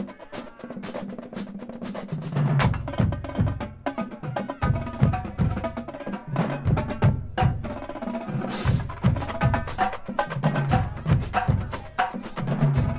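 Marching drumline playing a fast cadence: dense, rapid snare and quad strokes over low, pitched bass-drum notes.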